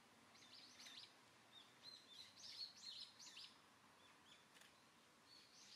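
Faint small songbird chirping: quick, high twittering notes in short runs, thinning out after about three and a half seconds, over a low background hiss.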